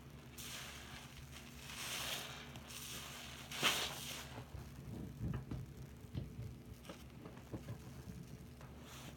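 Soapy sponge squeezed and kneaded by hand in a sink of foam and soapy water: wet squishing with fizzing, crackling suds, a sharper squelch about three and a half seconds in, then a run of small irregular squelches and pops.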